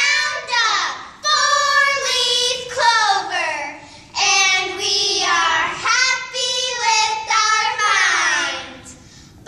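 A small group of young girls singing together in unison, unaccompanied, in short phrases with brief breaks between them.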